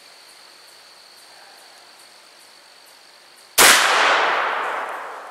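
A single shot from a 20-gauge single-shot shotgun firing a Remington rifled slug: one sharp, loud report about three and a half seconds in, ringing out and fading over the next second and a half.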